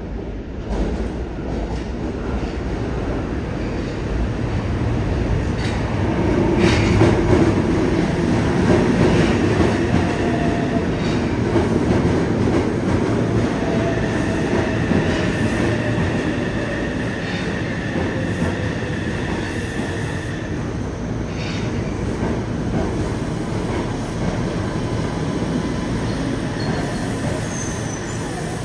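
Yokohama Municipal Subway 3000R-series train with a Mitsubishi IGBT-VVVF inverter pulling into an underground station and braking. The wheels rumble on the rails, loudest a few seconds in as the front of the train passes, with a slowly falling whine from the inverter motor drive and wheel squeal as it slows.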